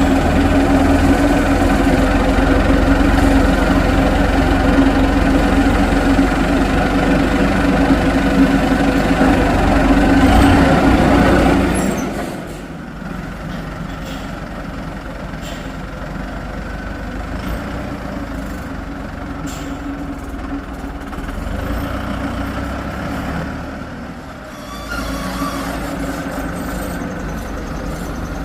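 Heavy diesel engine of construction machinery running under load, then easing to a quieter run about twelve seconds in, with a few faint clicks and knocks.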